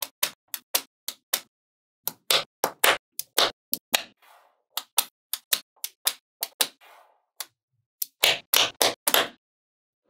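Small magnetic balls clicking and clacking as they snap onto one another and are pressed into a block, an irregular run of sharp clicks with two short pauses.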